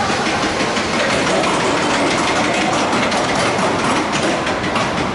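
Roller coaster train running along its track: a steady rattling clatter of wheels and car, with fast repeated clicks.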